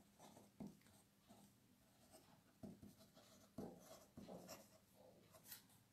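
Fountain pen nib scratching faintly on paper in short strokes as words are written.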